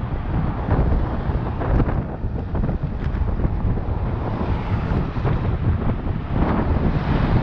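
Wind buffeting a helmet camera's microphone on a road bike at speed: a steady, rumbling rush. Cars overtake close by, one passing alongside about halfway through.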